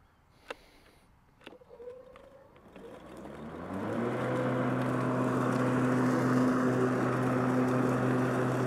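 Powersmart 80-volt cordless lawn mower's twin blades spinning up. After two clicks, the motor hum rises in pitch over about a second and a half, then settles into a steady hum with a rushing of air under the deck.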